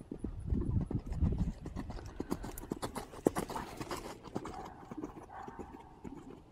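Hoofbeats of a Trakehner gelding cantering on sand arena footing, to and over a low fence. The strikes grow loudest and sharpest around the middle as the horse passes close, then fade as it canters away.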